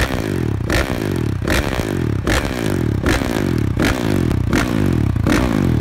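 Honda motocross bike's engine revved through twin HGS silencers in quick throttle blips, about one every three-quarters of a second, with the revs falling away after each.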